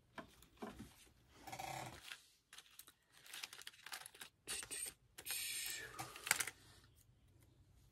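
Paper rustling and sliding with light clicks and taps, in short separate bursts, as loose paper scraps are picked through by hand.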